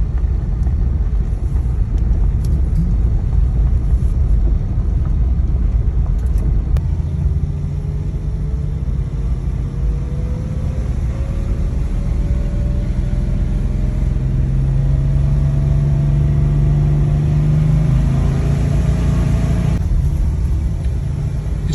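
Porsche 911 (993)'s air-cooled flat-six engine pulling the car at low speed over heavy road rumble. From about a third of the way in, the engine note climbs steadily as it accelerates, then falls away abruptly near the end.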